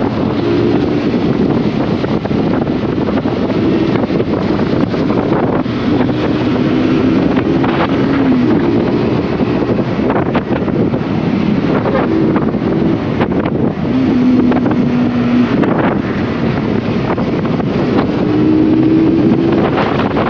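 Heavy wind rushing over the microphone of a moving Honda CBR150R motorcycle, with the bike's single-cylinder engine humming underneath, its pitch stepping up and down every few seconds.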